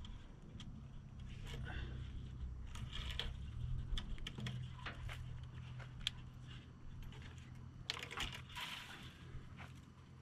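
Tractor engine running steadily in the background as a low hum, with scattered sharp clicks and scrapes of handling on top.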